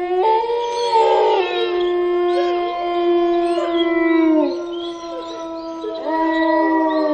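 A pack of wolves howling together: several long, held howls at different pitches overlapping. They trail off and drop about four and a half seconds in, and new howls rise about six seconds in.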